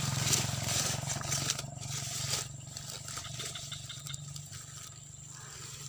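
Grass and weeds rustling and crackling against rubber boots and the camera as the angler moves through the vegetation, loudest at first and dying down after about two and a half seconds, over a steady low hum.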